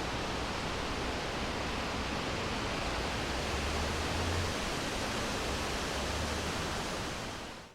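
Wind blowing steadily through a forest, an even rushing with swells of low rumble in the middle, fading out near the end.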